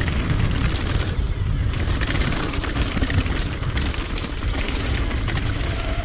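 Mountain bike descending a rough trail: tyres and bike rattling over rocks and roots with scattered clicks and clatter, under steady wind rumble on the microphone.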